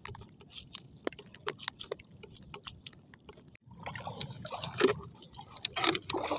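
Shallow seawater splashing and sloshing as it is disturbed, with scattered small clicks and ticks at first and busier splashing from about four seconds in.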